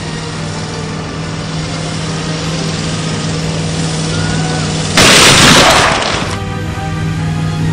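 A 15,000 lb motorhome at 30 mph crashes into a steel net barrier: one loud crash about five seconds in, lasting just over a second, over steady background music.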